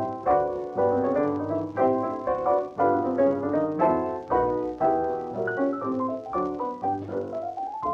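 Two pianos playing a quick run of notes over a string bass, from a 1939 Parlophone 78 rpm shellac record of a dance-band tune.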